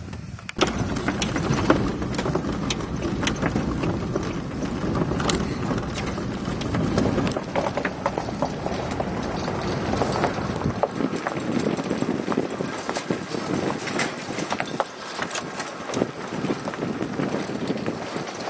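Pickup truck driving over a rocky dirt track: tyres crunching on gravel and stones, with constant irregular knocks and rattles from the cab over a low rumble that eases about eleven seconds in.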